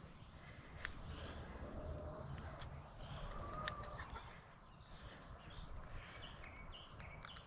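Faint bird calls, short chirps and clucks, with a few sharp clicks, one louder about halfway through.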